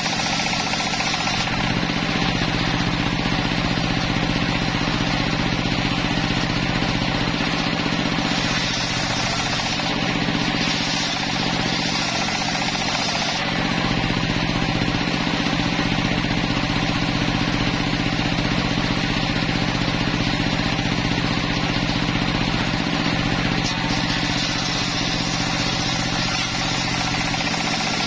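Homemade bench circular saw ripping planks of timber: the blade cuts steadily through the wood over the constant hum of its drive motor.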